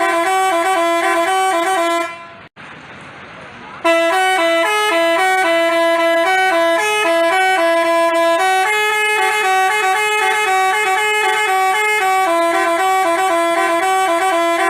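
Telolet multi-tone bus horn (Basuri type) playing a tooting melody of quick stepped notes. It breaks off about two seconds in for nearly two seconds, then plays on.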